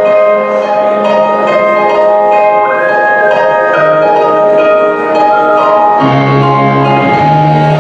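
K-pop dance track playing: a melody of held notes over sustained chords, with a low bass line coming in about six seconds in.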